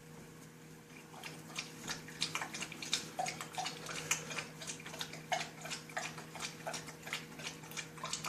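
A dog lapping water from a bowl, quick wet laps at about three to four a second, starting about a second in.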